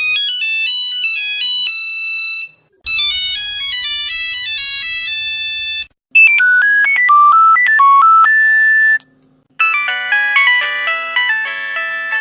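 A run of Nokia mobile phone ringtones: about four short electronic melodies play one after another, each cutting off abruptly with a brief gap before the next begins. The third is a simple single-note tune; the others are fuller, with several notes at once.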